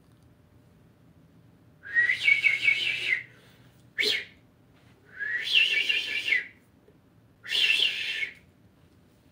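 Shiba Inu howling: three long, high, wavering howls with a short sharp sound between the first two.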